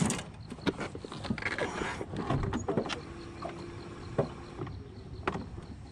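Knocks and clicks from handling gear in a small aluminum boat, with a short steady hum from about three seconds in.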